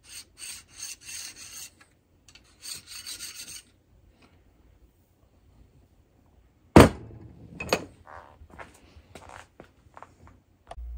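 Hand file scraping the end of a steel barrel liner in two runs of quick strokes, taking off a burr. About seven seconds in comes one sharp knock, then lighter clicks and knocks of metal on the workbench.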